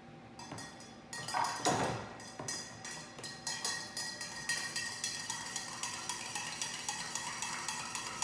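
A spoon stirring cold, thick honey into a coffee-extract and liqueur mix, clinking against the container in a quick, even rhythm of several clinks a second.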